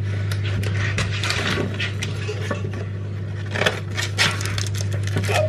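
Small hard items and packets rattling and clicking while a cupcake baking kit is unpacked and sorted, over a steady low hum.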